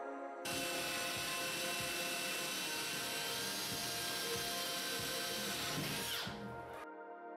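Cordless drill drilling overhead into the ceiling: a steady whining run with irregular low knocks, starting about half a second in, with a brief rising whine just before it cuts off near the end.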